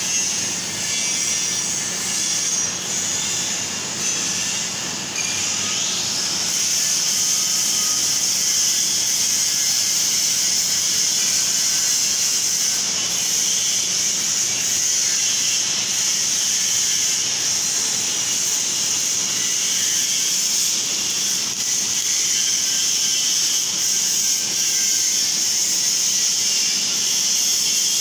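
MIG wire-feed welding on steel beams: the arc gives a steady sizzling hiss, a little uneven at first and holding even from about six seconds in.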